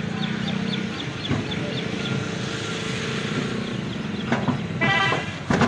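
A steady low engine hum of a running vehicle. Near the end come a few sharp knocks as a water buffalo's hooves strike a truck's metal tailgate ramp, with a short pitched call or horn in between.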